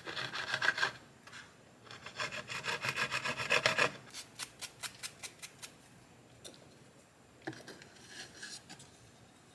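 Handsaw cutting a small wooden block in quick back-and-forth strokes, in two spells, then a few slower, lighter strokes as the cut finishes, and a brief light knock and rub near the end.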